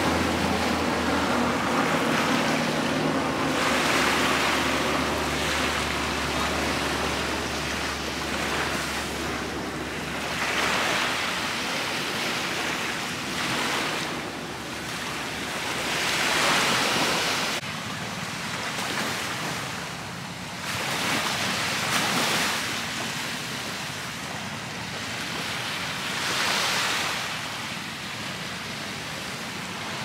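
Small waves washing onto a sandy beach, the surf swelling and easing every few seconds. A low engine drone fades away during the first several seconds.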